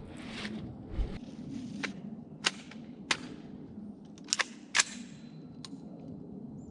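A string of about eight sharp cracks at irregular intervals, the loudest about two and a half, three and five seconds in, two of them close together near the four-and-a-half-second mark.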